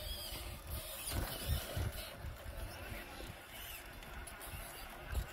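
Wind buffeting the microphone in uneven low gusts, over the faint whir of an Axial SCX6 RC rock crawler's motor and drivetrain as it crawls over shoreline rock.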